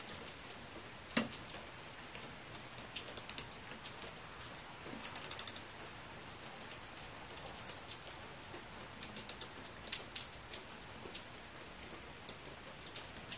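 Ratchet wrench clicking in several short runs of quick clicks as the carburetor's float-bowl nut is snugged down, tightened only slightly against a good gasket.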